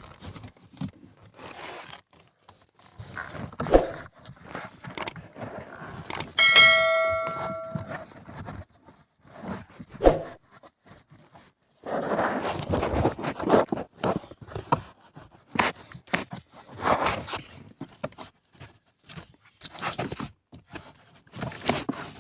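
Hands and tools working on a car's AC blower housing under the dashboard: scattered clicks, knocks and scraping of plastic parts, with one metallic ding that rings for about a second and a half, about six seconds in.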